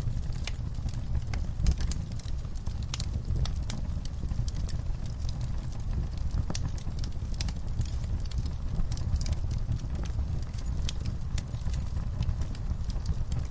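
Burning wood fire crackling: a constant run of sharp, irregular pops and snaps over a steady low rumble of the flames.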